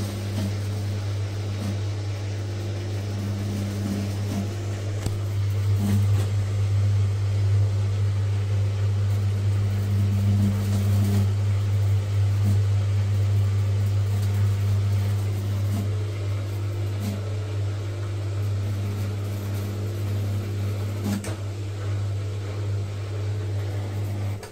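Gorenje SensoCare appliance making a steady low electrical hum, with a higher buzz coming and going over it and a few faint ticks; the hum grows louder about five seconds in. It is the weird sound that goes with the machine's error F5.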